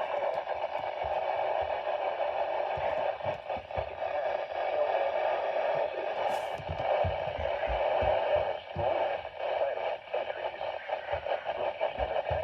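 Radio receiver static: a steady hiss with scattered crackles and pops.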